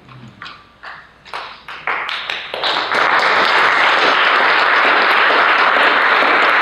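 Audience applauding: a few scattered claps swell within about two seconds into steady, full applause.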